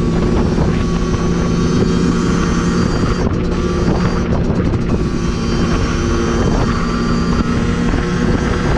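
Dirt bike engine running at a steady cruising speed under the rider, with wind noise over it. The engine note dips briefly about three seconds in and again at about six and a half seconds.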